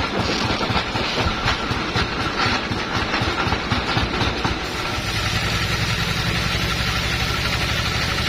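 Sawmill bandsaw running through teak, with its engine: uneven noise with many short ticks for about five seconds, then a steady engine drone.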